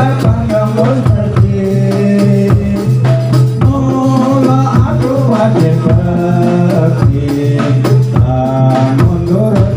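Live kubro siswo dance accompaniment music: dense drumming with jingling tambourine-like percussion under a steady low held tone and a melody.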